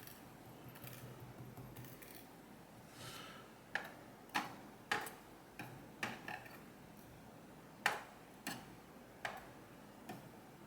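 Light, sharp metallic clicks of small tools and parts working in an ASSA Guideline lock cylinder as its pin springs are taken out. About a dozen irregular ticks start a few seconds in, after a faint handling rustle.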